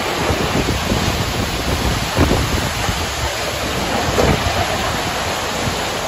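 Heavy rain and strong storm wind, with gusts buffeting the microphone in uneven low rumbles.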